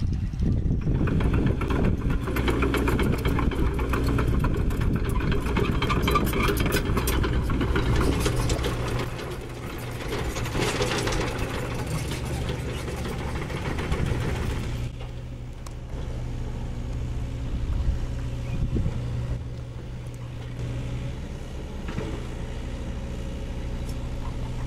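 Hydraulic excavator diesel engine working under load, with the bucket scraping and clattering through broken concrete rubble and soil. About fifteen seconds in the clatter stops and the engine runs on more steadily and quieter.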